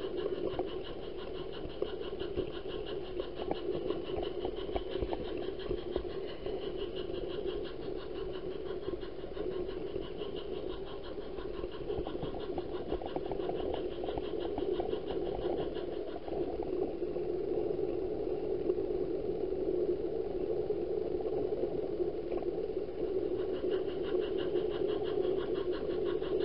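Model train running steadily: the locomotive's small electric motor and gears hum while the wheels rattle continuously over the track, heard from a car riding just behind the engine's tender.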